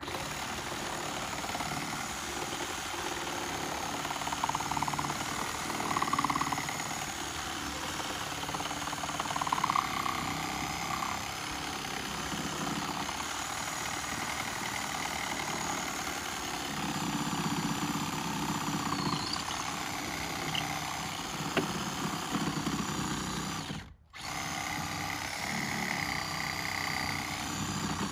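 Milwaukee Sawzall reciprocating saw cutting through a fallen tree limb, the blade running steadily through the wood. It stops for a moment near the end and starts again.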